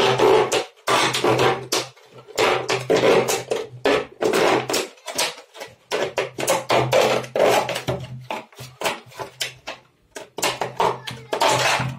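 Thin plastic of a 2-litre PET bottle crackling and crinkling in quick irregular bursts as a knife cuts an oval opening in its side and hands turn the bottle, over a steady low hum.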